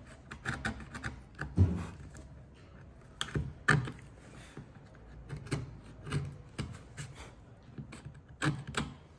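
Wood chisel pushed by hand into timber, chopping out the waste of a stopped housing joint: irregular sharp clicks and taps as the blade cuts and levers out the wood fibres, the loudest about one and a half and three and a half seconds in.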